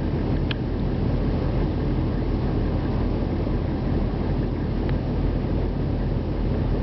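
Military vehicle's diesel engine idling: a steady low rumble.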